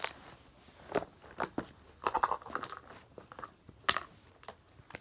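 Slime being squeezed and stretched by hand, giving a string of irregular sharp pops and clicks as air pockets burst. A denser crackly run of pops comes about two seconds in.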